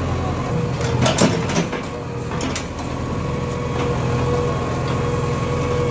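JCB 3DX Xpert backhoe loader's diesel engine running steadily while the backhoe digs, with a few knocks about a second in.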